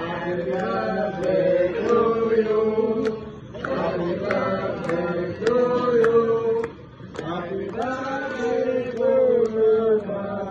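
Voices chanting a sung melody with long held notes, breaking off briefly twice, with sharp clicks scattered through it.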